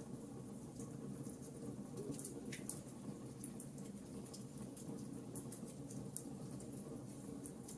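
Wood fire crackling in a fireplace: frequent small, sharp, irregular pops and snaps over a steady low rumble.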